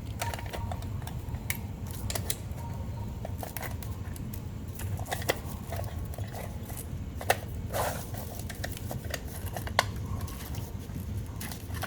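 Scattered small metal and plastic clicks and knocks as the armature is worked out of a car radiator cooling fan's electric motor, hard to pull against the magnets inside, over a steady low hum. A couple of sharper ticks stand out, about seven and ten seconds in.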